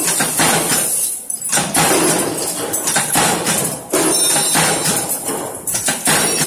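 Flywheel-driven mechanical punch press stamping a steel strip into butt hinge parts: a dense run of sharp metallic clanks from the ram, broken by a few brief pauses as the strip is fed on.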